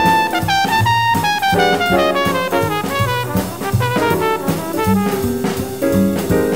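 Background jazz music: brass instruments playing a stepping melody over a drum kit.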